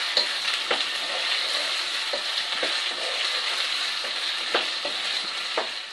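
Diced potatoes, onion and tomato sizzling in hot oil in a pot as they are fried, stirred with a wooden spoon, with a few soft knocks and scrapes of the spoon against the pan.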